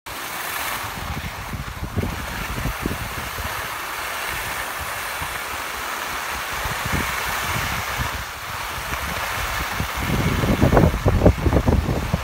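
Skis hissing over groomed snow while a skier glides downhill, with wind rushing over the phone's microphone. From about ten seconds in, gusts buffet the microphone in uneven low rumbles.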